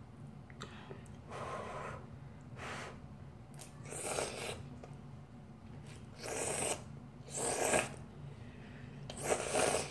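A person slurping instant noodles from a bowl: about six short slurps a second or two apart, the loudest near the end, over a faint steady low hum.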